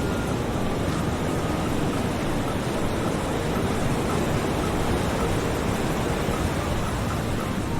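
Steady rushing ocean-surf ambience, even and unbroken, heaviest in the low end, with a few faint high music notes over it.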